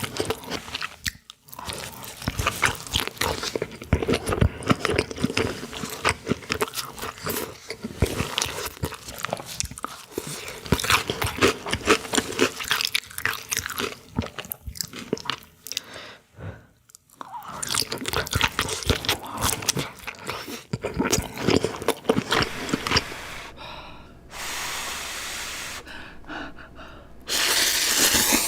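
Close-miked eating: crunchy biting and chewing with dense irregular crackles. In the last few seconds this gives way to steady hissing noise, loudest just before the end.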